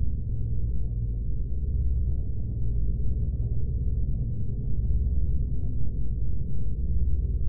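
Synthesized sci-fi force field drone: a deep, steady hum of low tones with a slow, uneven pulse.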